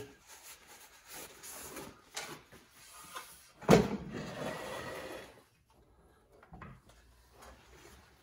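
Paper towel rubbing and wiping over an engine's crankcase and metal surfaces, with a single sharp knock about three and a half seconds in, then faint scattered ticks of handling.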